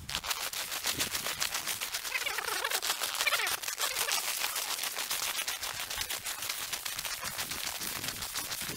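Footsteps crunching through snow, a fast, unbroken run of crunches.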